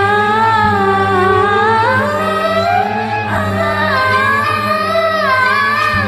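A woman singing a Tamil film song over a karaoke backing track, holding long notes that glide up and down with a slow waver.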